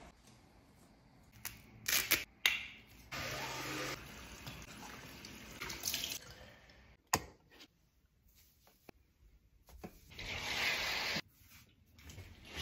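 Bathroom tap running into a sink, with water splashing as someone washes their face, and a few sharp clicks and knocks in between.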